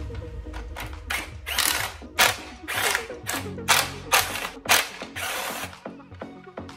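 Cordless impact driver hammering at the screws that hold the heater control unit in a van dashboard fascia, in a series of short bursts about a second in and ending near five seconds, with music playing faintly underneath.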